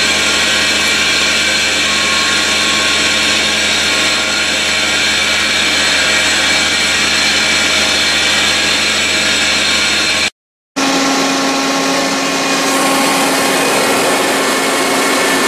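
Air compressor machinery running with a loud, steady, many-toned drone. About ten seconds in the sound cuts out briefly, then a different steady drone with a strong low hum follows: the electric motor of the compressor, running on test after its shaft seal was replaced.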